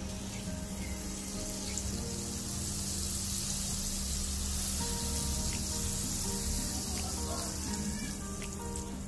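Butter sizzling in a hot pan as it melts: a steady frying hiss that swells a little in the middle.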